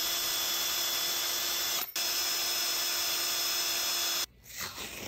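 Power drill running steadily as its bit bores a hole through a tape-covered plastic mounting plate. It drops out for an instant about two seconds in, then cuts off near the end, leaving a few light clicks and scrapes.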